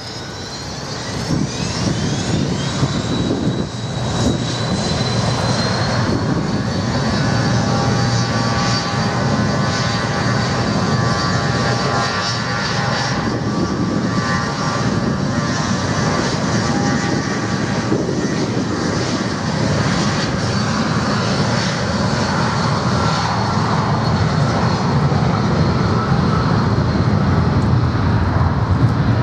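The four turbofan engines of a CityJet Avro RJ (BAe 146 family) airliner running at power, a high whine that rises in pitch in the first few seconds and then holds steady over a loud low rumble. It is the jet spooling up for its take-off roll.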